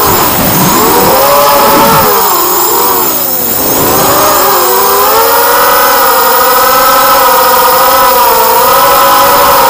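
Brushless motors (DYS BE1806 2300kv) spinning HQ 4045 bullnose propellers on a small 4S FPV racing quadcopter, whining with a pitch that rises and falls with the throttle. The pitch plunges sharply a few times in the first four seconds, as the throttle is chopped and punched, then holds a steadier whine.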